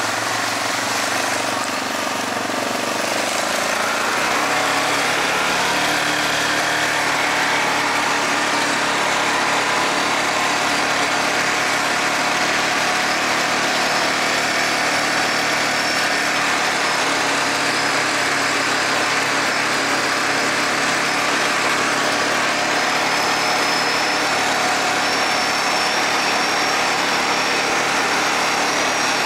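Yamaha Grizzly 450 ATV's single-cylinder four-stroke engine running under way. The revs rise a few seconds in and then hold steady.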